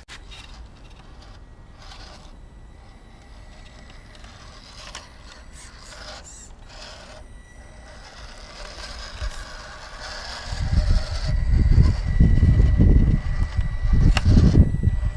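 Small electric RC rock crawler running: a thin steady motor whine with scattered clicks and scrapes. About ten seconds in, loud low rumbling gusts come in and cover it.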